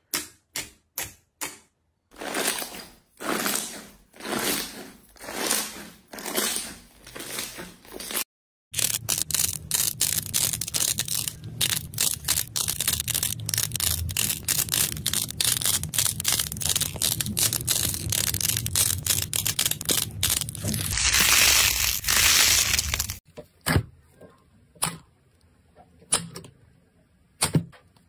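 Hands playing with slime: poking and squishing make sharp wet clicks and soft swelling squelches, then squeezing a pastel slime shaped into rows of balls gives a long run of dense, loud crackling. Sparse wet clicks follow near the end as a thick pink slime is kneaded.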